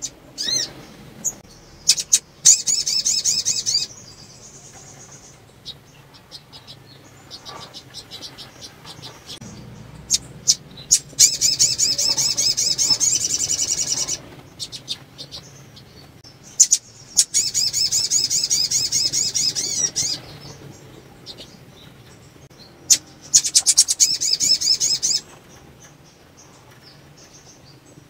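Caged female sunbird (sogon) giving rapid, very high-pitched trilling calls in four bursts of a few seconds each, with short sharp clicks in between. It is the call of a female in breeding condition, the kind used to prompt male sogon to sing.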